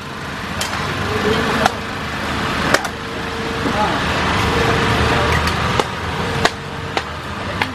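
Metal ladle and spatula clinking and scraping against a large wok as fried noodles and rice are stirred. About seven sharp clinks, over a steady rushing noise.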